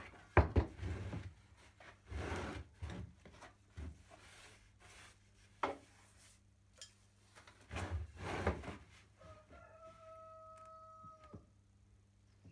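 Wooden pieces being handled on a workbench: a series of knocks, clatters and scraping rubs. About three-quarters of the way through, a steady tone holds for about two seconds.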